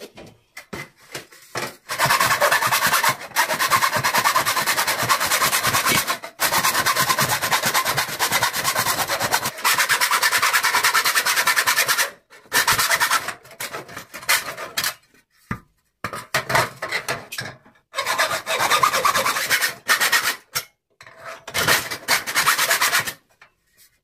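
Hacksaw cutting through thin sheet-steel cable trunking with rapid, rasping back-and-forth strokes. It starts about two seconds in and runs unbroken for about ten seconds, then continues in shorter runs with brief pauses.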